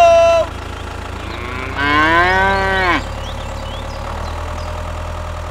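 A cow moos once about two seconds in, a single drawn-out call lasting about a second, over a steady low engine rumble. The tail end of another call fades out in the first half second.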